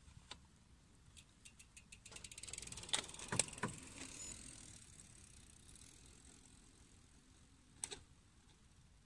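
Mountain bike's freehub ratchet ticking fast, with a few sharp knocks of chain and frame, over a faint rush of tyres that swells about two seconds in and fades away; two more clicks near the end.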